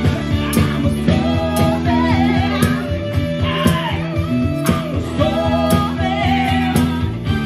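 Live rock band playing: drums keeping a steady beat of about two hits a second under electric guitar and bass, with a singer's voice carrying the melody.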